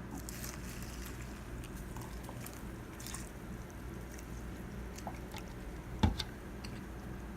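Faint handling noises, light clicks and rustles, over a steady low hum, with one sharp knock about six seconds in.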